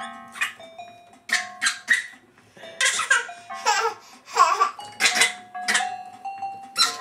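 A baby laughing in short, repeated bursts while pressing the keys of an electronic keyboard, which sounds steady held notes under the laughter.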